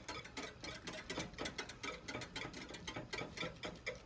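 Wire whisk beating a liquid in a small metal saucepan, its wires clicking rapidly and fairly evenly against the pan's sides and bottom.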